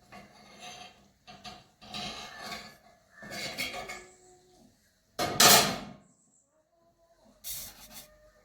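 Pieces of metal clanking and scraping against each other in a few separate bursts, some leaving a short ringing tone. The loudest clank comes about five seconds in.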